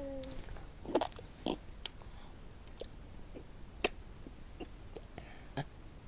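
The tail of a burp, a low pitched tone sliding downward, stops just after the start. Then come scattered faint clicks and smacks, about a dozen in five seconds.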